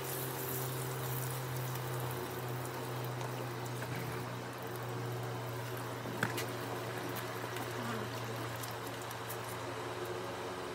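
Water pouring and trickling from a hose onto a grey horse being washed down, over a steady low hum. A single sharp click about six seconds in.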